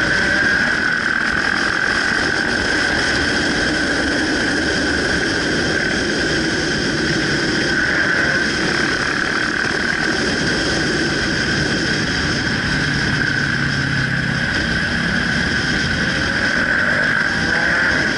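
Motorcycle riding steadily at speed, its engine drone mixed with rushing wind on a bike-mounted camera, holding an even high-pitched whine throughout.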